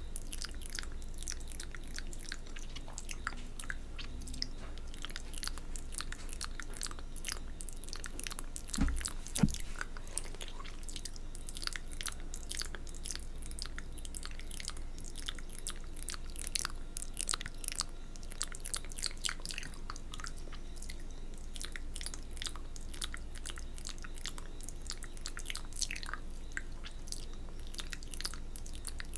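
Close-miked wet mouth sounds of spit painting: licking, lip smacks and saliva clicks in a quick, irregular crackle. A couple of low thumps come about nine seconds in.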